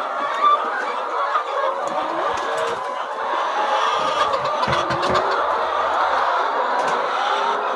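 A large flock of chickens clucking and chattering, many birds calling over one another in a steady, dense din.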